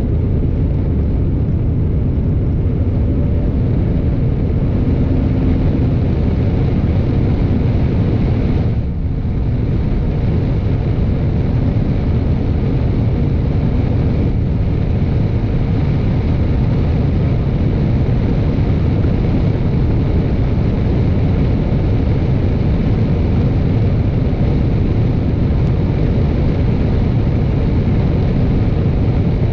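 Steady road and wind noise of a car being driven, a low rumble that dips briefly about nine seconds in.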